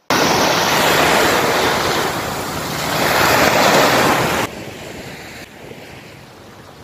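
Small waves washing in over wet sand with foam, and wind on the microphone. The surge swells about three seconds in, then drops suddenly to quieter surf and wind after about four and a half seconds.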